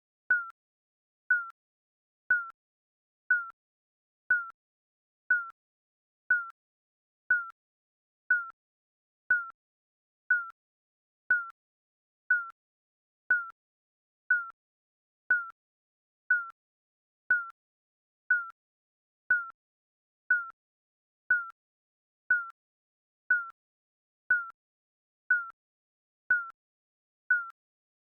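Digital countdown timer beeping: one short, high electronic beep every second, each the same pitch with a slight dip at its start and silence between beeps.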